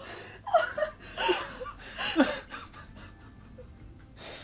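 A person laughing in short, chuckling bursts over the first couple of seconds, then trailing off.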